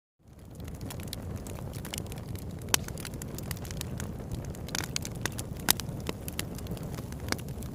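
Campfire crackling, with many sharp snaps and a few louder pops over a steady low rumble. It fades in at the start.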